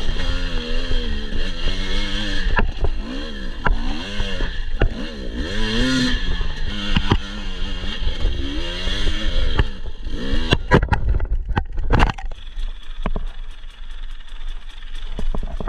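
Husqvarna TE 250i two-stroke enduro engine revving up and down as the bike is ridden, with pitch rising and falling repeatedly. About ten seconds in comes a run of sharp knocks and clatters, after which the engine runs lower and steadier, close to idle.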